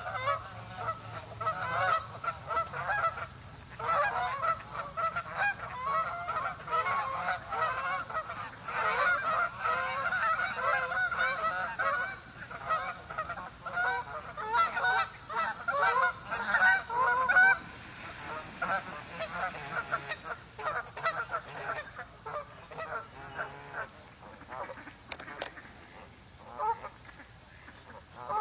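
A flock of geese honking in a dense, overlapping chorus that thins out to scattered calls about two-thirds of the way through.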